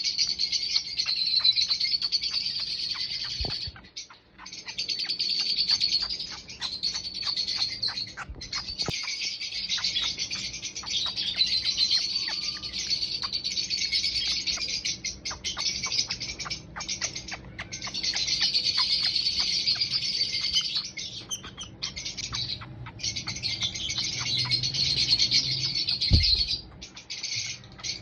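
Baby lovebird chirping almost without a break in high-pitched, rapid cheeps, pausing only a few times for a moment. A dull bump sounds near the end.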